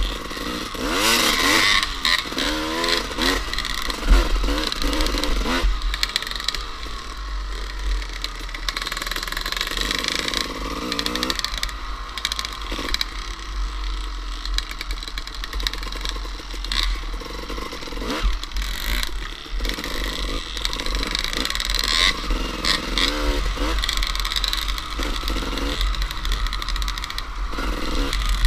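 Suzuki RM 250 two-stroke dirt bike engine revving hard and shifting through the gears at speed, its pitch repeatedly climbing and dropping. Heavy wind rumble on the microphone.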